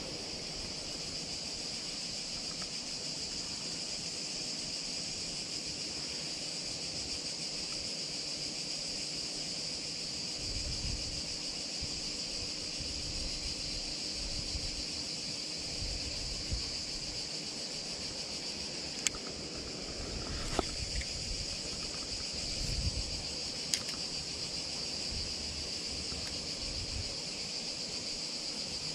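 Steady, high-pitched chorus of summer insects, unbroken throughout. A few faint clicks and soft low bumps come in the second half.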